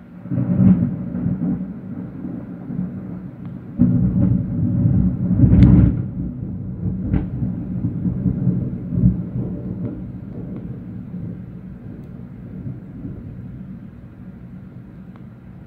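Thunder: a loud rolling rumble breaks out just after the start, swells again with sharp cracks about four to six seconds in, then slowly rolls away.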